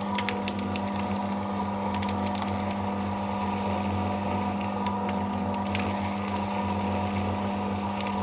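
Electric paper shredder running steadily with an even motor hum while it cuts a long strip of thermal-print ECG paper. Light irregular ticking and crackling from the paper going through the cutters.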